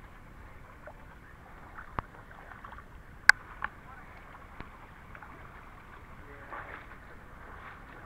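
Feet wading through a shallow, rocky creek: steady splashing and trickling water, with a few sharp knocks, the loudest about three seconds in.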